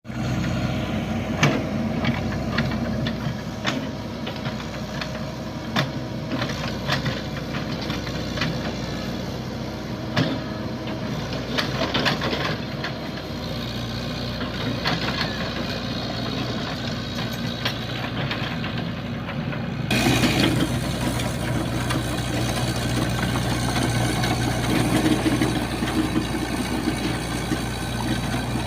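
Komatsu PC78 mini excavator's diesel engine running steadily, with scattered sharp clanks and knocks over the first twenty seconds. About two-thirds of the way in, the sound changes abruptly and becomes a little louder and fuller.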